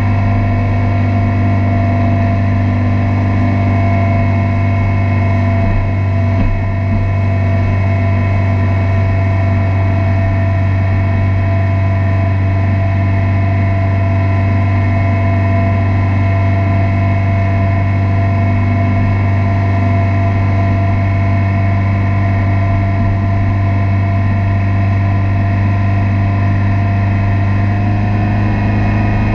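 Motorboat engine running steadily at cruising speed while towing, a constant low drone with a slight change in pitch near the end.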